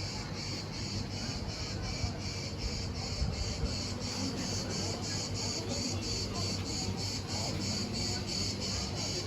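Insects chirring in an even run of short high pulses, about three a second, over a low steady background rumble.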